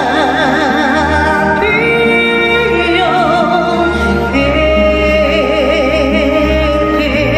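A woman singing long held notes with vibrato over a karaoke backing track.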